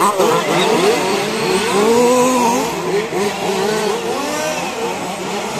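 Several 1/5-scale petrol RC cars' small two-stroke engines racing together, their overlapping notes rising and falling as they accelerate and back off.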